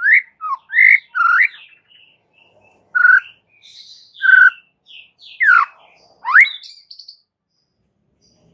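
White-rumped shama in full song: loud, clear whistled phrases with rising and falling glides, several short notes in the first seconds, then a long downward sweep answered by a quick upward sweep.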